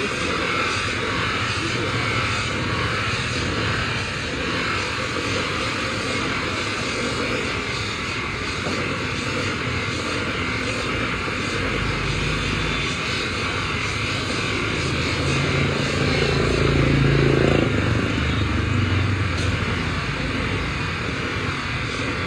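A motor-driven workshop tool running steadily with a continuous rushing whoosh. A low hum under it swells for several seconds in the second half.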